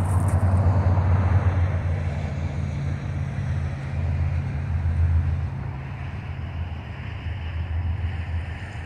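Low, steady diesel drone of an approaching BNSF train's GE Evolution-series locomotives, still some distance off.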